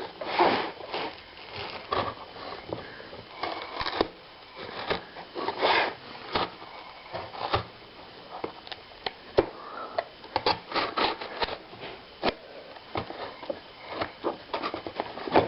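A mailed package being opened by hand: irregular rustling and scraping of the packaging, broken by many short clicks and knocks.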